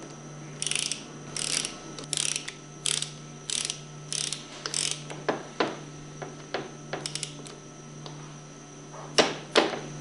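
Ratchet wrench being worked in seven short raspy strokes about 0.7 s apart, running down the plunger nuts on a Hypro plunger pump. Scattered light clicks follow, and two loud sharp clicks come near the end.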